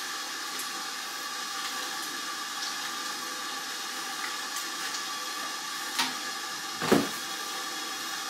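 Steady hiss of water heating in an electric rice cooker, with a small click about six seconds in and a louder knock a second later.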